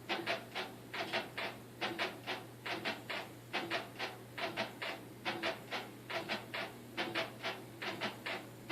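Brand-new LG WT4870CW top-load washer agitating on a wash cycle, squeaking rapidly, about four squeaks a second in a steady repeating rhythm over a low motor hum: a loud racket that the owner puts down to the suspension bars and tub mounts as the tub moves back and forth.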